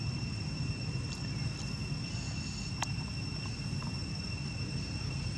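Steady, unbroken high-pitched insect drone over a low outdoor rumble, with a few faint sharp clicks.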